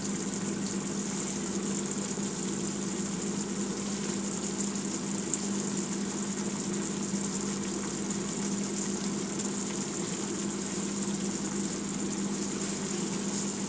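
Skillet of pork chops and stir-fry vegetables in sauce sizzling steadily on the stove, an even hiss over a steady low hum.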